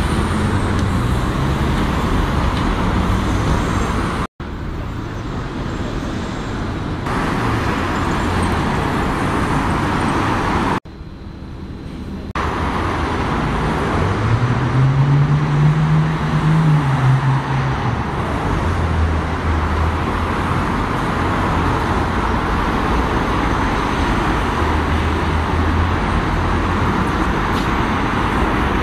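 City street traffic: double-decker bus and car engines running and tyres on the road. The sound breaks off suddenly twice. About halfway through, an engine's note rises and then falls as a vehicle accelerates past.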